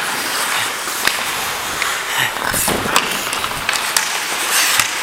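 Ice hockey skates scraping and carving on the ice, with several sharp clacks of sticks and puck.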